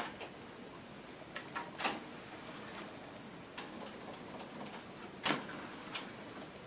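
Pioneer CT-M6R six-cassette deck's mechanism clicking: a button click, then scattered clicks and clunks, the loudest about five seconds in as the cassette well doors open, over a faint hiss.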